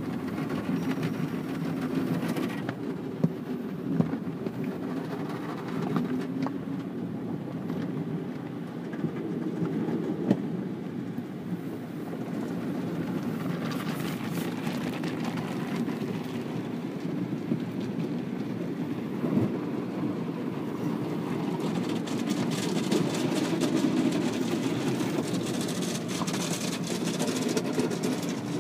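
Automatic car wash heard from inside the car: a steady rumble of water and wash machinery against the body and glass, with a few sharp knocks. Hissing spray grows louder about 14 seconds in, and again from about 22 seconds until near the end.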